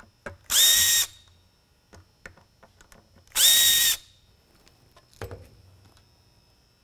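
Makita cordless drill with a small Phillips bit spinning in two short bursts about three seconds apart, each whining up to speed and holding, as it backs out the small screws holding a lightbar's slide retainer. A knock follows about five seconds in.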